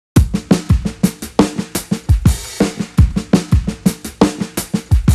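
Music: a drum-kit beat of bass drum and snare hits in a fast, busy pattern, starting suddenly out of silence just after the start.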